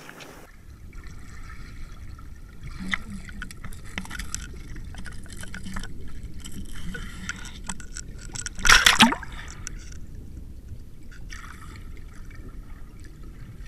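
Water heard through an underwater camera: muffled moving water and gurgling with scattered clicks and knocks, and one much louder burst of noise about nine seconds in.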